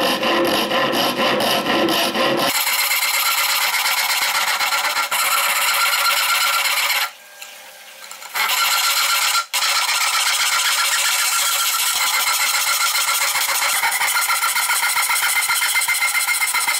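Japanese handsaw cutting into a laminated softwood block in quick, continuous strokes, a dense rasping scrape. It pauses briefly about seven seconds in, then saws on.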